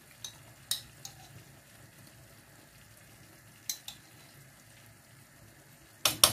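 Tomato sauce simmering with a faint sizzle in a frying pan, with a few light spoon clicks as dollops of pesto go in. Near the end comes a quick, loud clatter of a spoon knocking against the pan.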